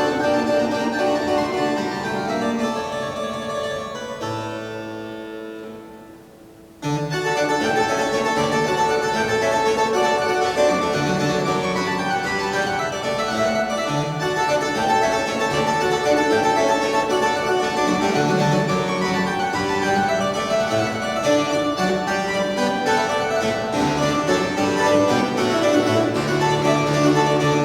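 Pipe organ playing held chords and running lines. About four seconds in the sound dies away into the church's reverberation, and a couple of seconds later the playing starts again abruptly.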